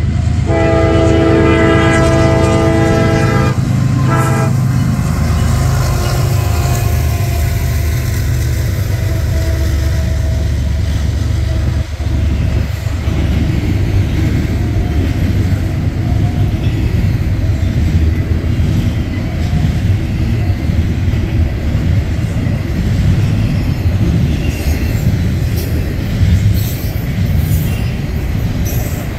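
Locomotive horn chord sounding a long blast that stops about three and a half seconds in, with a brief toot just after. Then the steady low rumble and wheel noise of a train passing close by.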